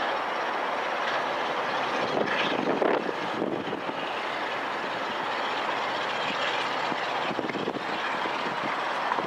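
Class 47 diesel locomotive's Sulzer twin-bank twelve-cylinder engine working under power as the train pulls away, a steady running noise that swells briefly about two to three seconds in.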